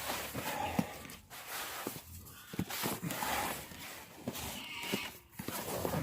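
Irregular crunching and scraping of wet, heavy snow in short bursts, with a few light knocks.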